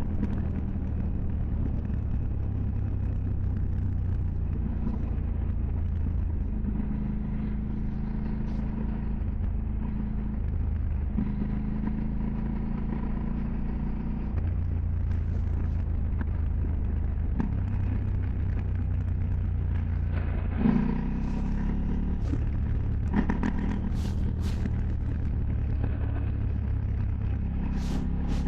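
KTM 790 Duke's parallel-twin engine running, its pitch holding steady and then stepping to a new level every few seconds as the revs change. A few short sharp clicks come in the last third.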